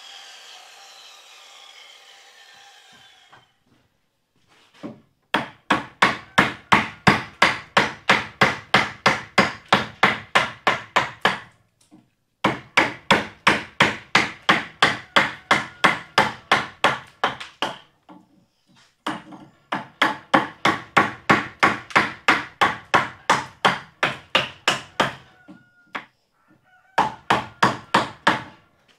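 Wooden mallet driving a chisel into a timber gate post to rough out its curved top: steady, evenly paced strikes about four a second in three long runs with short pauses and a shorter run near the end. In the first few seconds a circular saw winds down.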